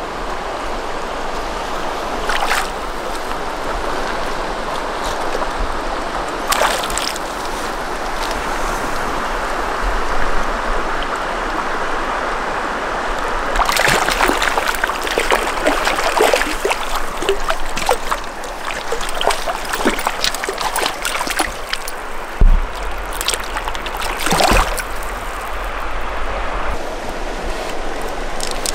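River current running steadily over a pebbly bank. From about halfway in, a hooked lenok splashes and thrashes in the shallows at the water's edge for several seconds as it is landed.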